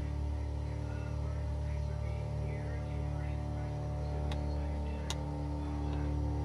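Steady electrical mains hum, with two short clicks about four and five seconds in.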